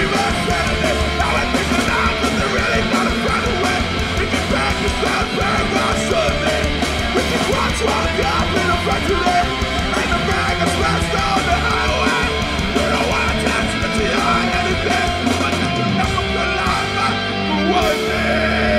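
Hardcore band playing live and loud: distorted electric guitars, bass and drums.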